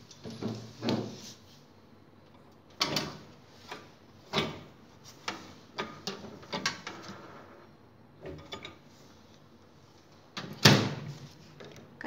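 Samsung convection microwave door being opened and a metal baking tray being put inside, with scattered knocks and clunks as the tray is handled, then the door shut with a loud clunk near the end.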